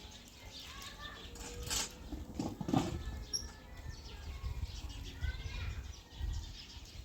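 Faint bird chirps over a low rumble, with a few knocks and rustling.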